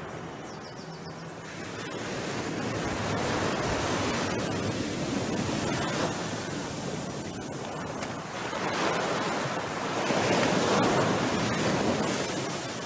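Ocean surf breaking and washing up a sandy beach, a steady rush of water that swells twice, the second surge the loudest near the end.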